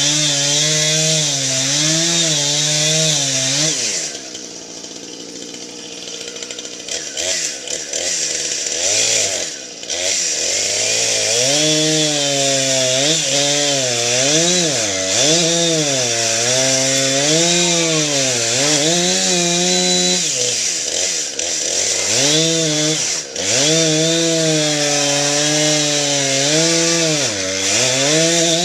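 Chainsaw bucking a felled cherry tree, its engine speed rising and falling over and over as it works through the cuts. About four seconds in it drops to a low idle for a few seconds before revving up again.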